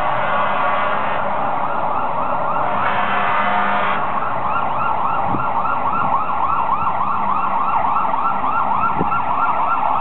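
Fire engine sirens wailing over traffic noise. About four seconds in, the sound turns into a fast yelp that rises and falls about four times a second.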